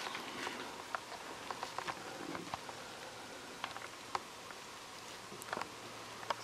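Footsteps crunching and rustling through dry fallen leaves, a scatter of faint irregular crackles.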